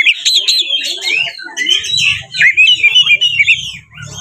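Oriental magpie-robin (kacer) singing its full, aggressive 'fighting' song: a loud, unbroken stream of quick whistles, chirps and rattling notes that change pitch constantly. It is the kind of song used to provoke rival males into answering. A faint low rumble runs underneath in the second half.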